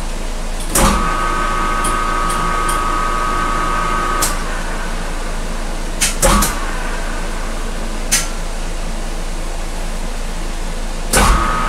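Metal lathe running at low speed while a 1/4-20 tap is run into a plastic workpiece, over a steady mechanical hum. A whine starts with a clunk about a second in and stops about four seconds in. More clunks follow around six and eight seconds, and the whine starts again with a clunk near the end.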